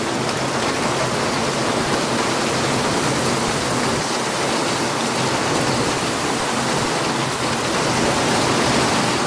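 Heavy rain falling steadily and splashing on wet paving.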